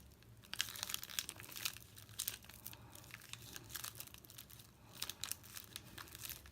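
Faint, irregular crinkling and small clicks of plastic handled by fingers pressing alcohol-moistened eyeshadow powder back into its pan.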